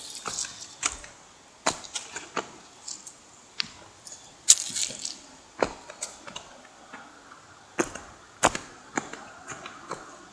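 Footsteps crunching and snapping on a rough, steep trail, landing unevenly about once a second.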